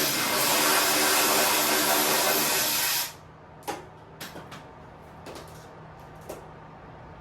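Compressed-air tool running with a loud, steady hiss, cutting off about three seconds in; a few light metal clicks and clanks of parts being handled follow.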